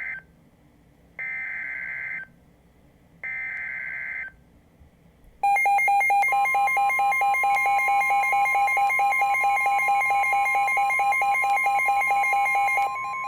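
Emergency Alert System broadcast tones: short buzzing SAME digital data bursts, the tail of one and then two more of about a second each, a second apart. About five and a half seconds in, the loud steady two-pitch EAS attention tone starts and runs about seven seconds before dropping in level near the end.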